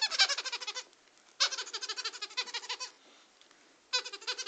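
A baby's soft toy giving rapid, bleat-like warbling chirps in three bursts of about a second and a half each. The second burst starts about a second and a half in, the third near the end.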